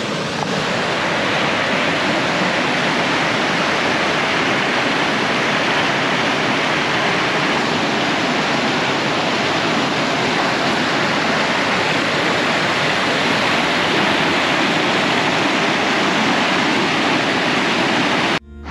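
Steady rushing of a river running unusually high, swollen with water. The sound cuts off abruptly near the end.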